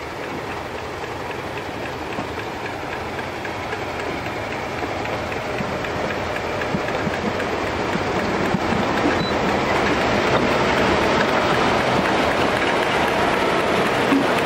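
British Rail Class 31 diesel-electric locomotive running slowly toward and past, its engine and wheels on the rails growing steadily louder as it comes close.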